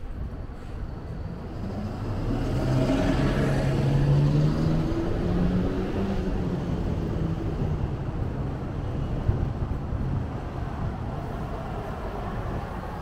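A motor vehicle passes close by in street traffic, its engine note swelling to loudest about four seconds in and then fading, over a steady bed of traffic noise.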